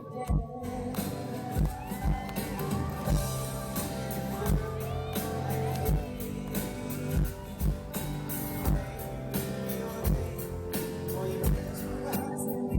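Live pop band music: a steady drum beat under guitar and held chords, with wordless vocal lines over the top.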